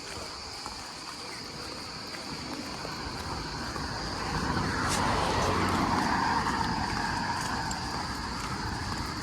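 A vehicle passes: its sound swells about four seconds in and then slowly fades. Under it runs a steady, high buzz of insects.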